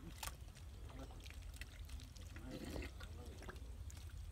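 Faint wet splashing and squelching of hands and feet working in soft pond mud, with scattered sharp clicks over a steady low rumble of wind on the microphone.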